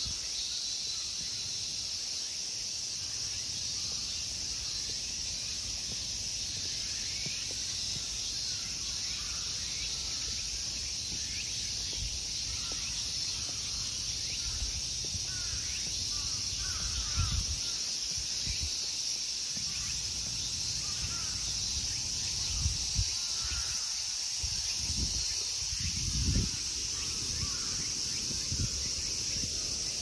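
Steady high-pitched chorus of summer insects, with scattered short bird calls. A few low thuds on the microphone come in the second half.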